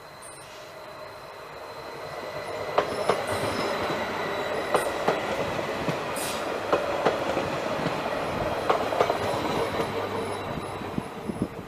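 A train rolling past on the line. The rumble of wheels on rail builds over the first few seconds and holds, with sharp clicks as the wheels cross rail joints, then eases near the end.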